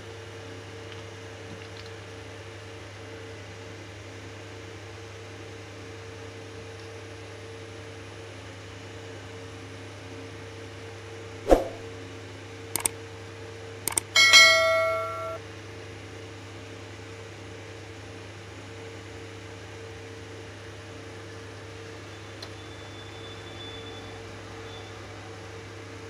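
Subscribe-button sound effect: a sharp click, two quick clicks, then a bright bell ding ringing out for about a second near the middle. A steady electrical hum runs underneath.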